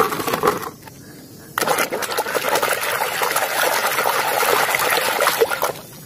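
Muddy water splashing and sloshing as a plastic toy truck is scrubbed and swished by hand in a basin, starting about a second and a half in, with small clicks of plastic against plastic.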